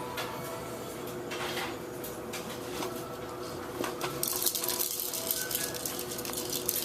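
A few light knocks of a toy being handled, then about four seconds in a baby's toy rattle starts being shaken in a fast, steady rattle.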